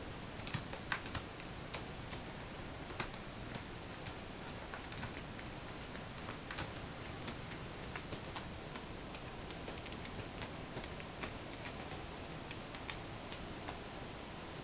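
Cat claws scratching and catching on corrugated cardboard scratching pads: irregular light clicks and rasps over a steady hiss.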